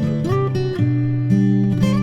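Acoustic guitar playing an instrumental interlude of strummed chords and changing notes.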